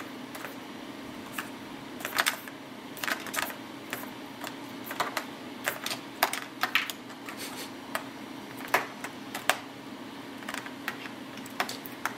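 Irregular clicks and taps of a kitten's paws and claws on the hard plastic of a graphics tablet, with a dangling cable's plug knocking against it as the kitten bats at it, some in quick clusters, over a steady low hum.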